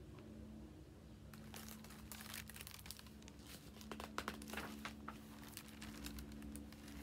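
Faint paper rustling and crinkling as a page of a picture book is turned, a cluster of soft rustles through the middle of the stretch.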